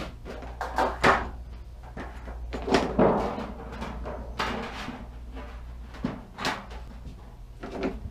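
A large disc of thin galvanized sheet steel being lifted and bent into a cone, flexing and rumbling and scraping over a plywood bench in about five separate rushes, the loudest about a second and three seconds in.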